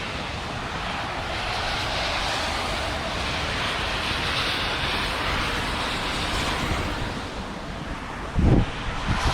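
Steady rushing wind blowing across the microphone, with a rumbling low buffet that swells into a brief heavier gust near the end.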